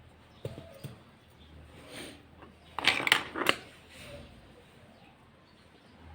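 Small clicks, then a quick run of sharp metallic knocks and clatter about three seconds in, as tools and washing machine parts are handled.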